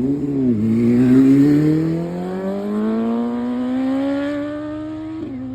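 Motorcycle engine pulling hard under acceleration, its pitch rising slowly and steadily, then dropping suddenly near the end as if at a gear change.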